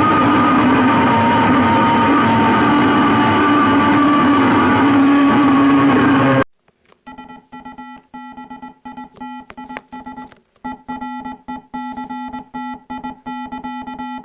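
Synthesized emergency-alert-style alarm tones. A loud, harsh, noisy tone runs for about six and a half seconds and cuts off abruptly. Then a pitched tone stutters on and off, broken up by many clicks.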